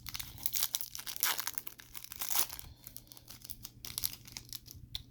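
A 2021 Bowman baseball card pack wrapper being torn open and crinkled by hand: a run of crackling tears and rustles, busiest in the first half.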